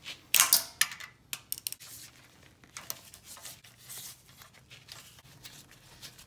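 Socket ratchet rasping and clicking as it backs out the oil pump bolts, with metal clinks. The loudest rasping burst comes about half a second in, followed by a quick run of sharp clicks and then lighter intermittent clicking.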